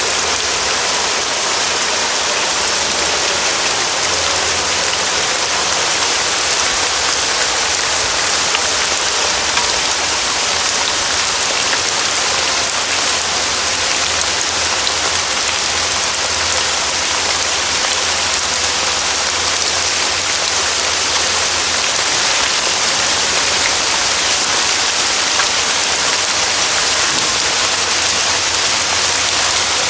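Forest rain falling steadily: a dense, even hiss of drops that never lets up.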